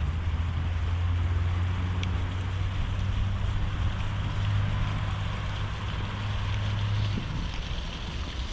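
Road traffic on a main road: a motor vehicle's engine with a steady low drone that ends about seven seconds in, over a constant rush of passing traffic and wind on the microphone.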